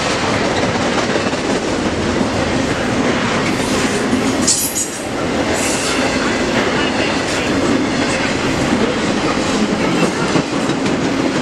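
Double-stack intermodal freight train rolling past at speed: a steady, loud rumble of wheels on rail with clicking over the rails, and a brief high squeal about four and a half seconds in.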